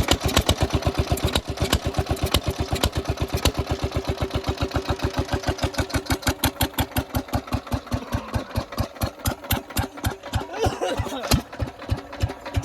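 Old engine running through a big aftermarket silencer, its exhaust beating out a steady series of evenly spaced pulses, several a second. The beat turns a little uneven near the end.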